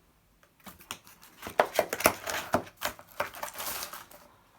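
Unboxing packaging being handled: a run of crinkling and rustling with several sharp clicks and taps, starting about a second in and dying away near the end.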